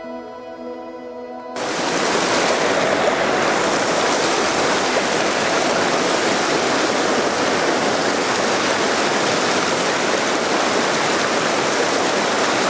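Soft background music, cut off about a second and a half in by the loud, steady rush of an ice-draped waterfall pouring over rocks into a creek.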